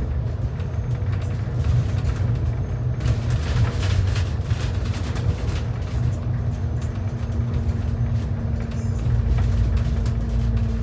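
Transit bus running, heard from inside the cabin: a steady low engine rumble with a constant hum over road noise, the road noise rising for a few seconds about three seconds in.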